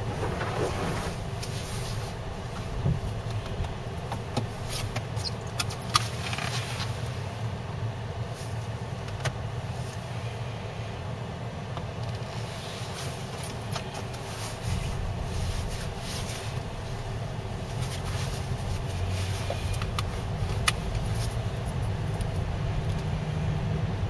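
Car driving slowly over snow and slush, heard from inside the cabin: a steady low rumble of engine and tyres, with a few scattered sharp clicks and knocks.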